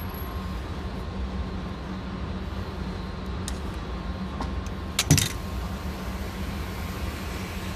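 Metallic clicks of a handgun being handled after firing, with a sharp double clack about five seconds in, over a steady low hum.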